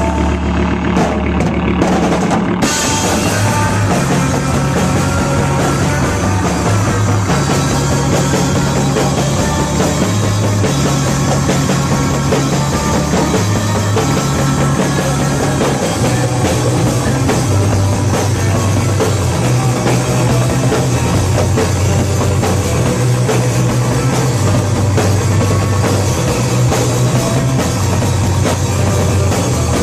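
A live rock band playing loudly on drum kit and electric guitars, with a low bass line stepping between notes. A few scattered drum hits open the stretch, and the full band comes in about two and a half seconds in.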